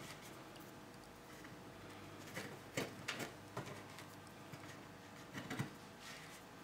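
Faint, scattered clicks and taps as nails are pushed by hand into the pre-drilled holes of a wooden nest-box roof board.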